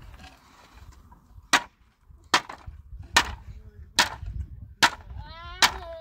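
A hand tool striking wooden pallet boards: six sharp, loud blows a little under a second apart, as the pallet is knocked apart. A bleat starts near the end.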